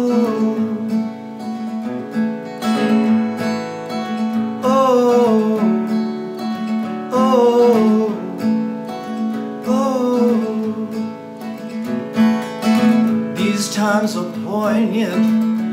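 A man singing with a strummed acoustic guitar. His voice swoops through drawn-out, wordless phrases, one every two or three seconds, over the steady chords.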